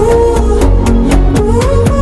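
Background music: a K-pop track with a steady drum beat and a sung melody line.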